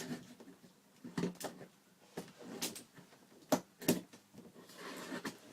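Cardboard shipping box being handled and worked open: a series of sharp knocks and clicks, then rustling scrapes near the end.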